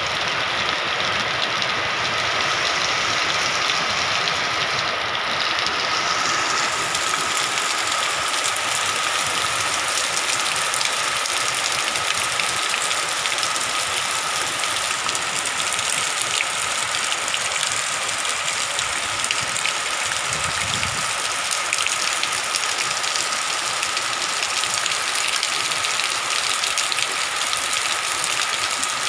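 Heavy rain pouring steadily, a dense even hiss of drops falling on gravel, leaves and trees.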